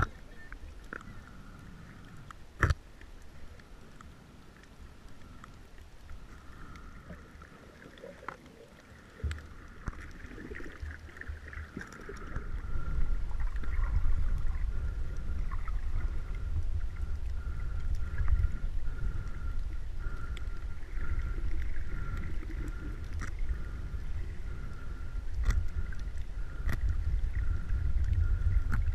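Underwater ambience picked up by a submerged camera: a low rumble of water movement that grows much louder about twelve seconds in, a faint steady whine, and scattered sharp clicks.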